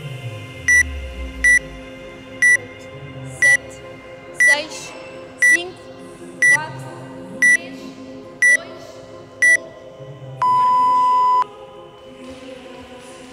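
Workout countdown timer: ten short high beeps about a second apart, then one long, lower beep marking the start of the workout, over background music.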